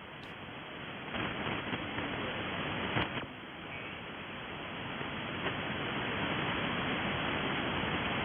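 Icom IC-7300 HF transceiver's receive audio: steady shortwave band noise and static on single sideband, with no clear voice coming through. It dips briefly about three seconds in.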